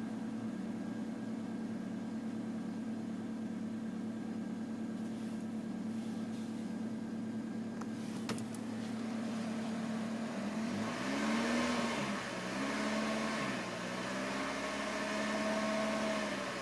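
1993 Toyota Corolla engine running cold with a vibration sound that only appears when the engine is cold and whose cause the owner cannot find. It idles steadily, then about two-thirds of the way through it is revved up and back down three times.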